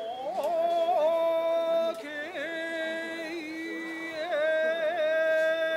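Edo tobi kiyari chant: a single voice sings long, high held notes with wavering ornamental turns, breaking briefly about two seconds in before carrying on. It is the traditional kiyari that leads into the closing sanbon-jime hand-clap.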